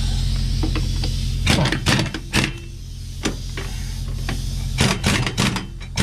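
A series of sharp, irregular knocks and clanks, starting about a second and a half in, over a steady low mechanical hum, from work on a truck wheel's nuts and hub.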